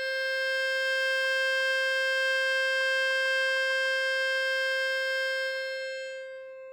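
A single long note blown on a harmonica, held at a steady pitch and level, then fading away near the end.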